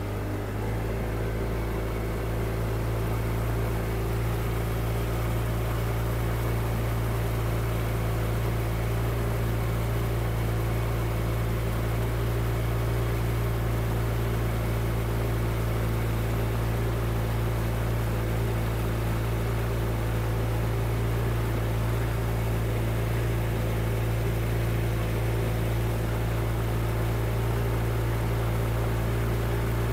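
Vintage boat's engine running steadily under way: a low, even drone that picks up a little in the first couple of seconds, with a hiss of wind and water rushing past the hull.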